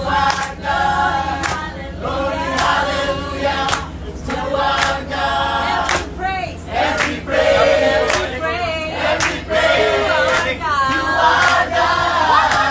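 A group of men and women singing together in chorus, with hand claps, over a steady low hum from the bus they ride in.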